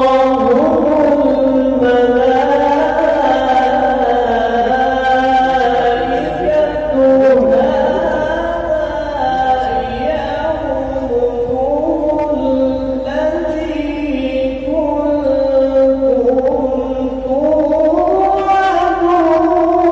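A man's voice reciting the Quran in melodic qirat style through a microphone, holding long notes that glide slowly up and down.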